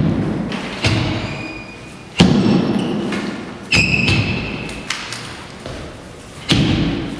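Heavy foot stamps on a hard studio floor as a martial artist steps through a Xing Yi form: a loud thud every second or two, each echoing in the large room. A short shoe-sole squeak comes about four seconds in.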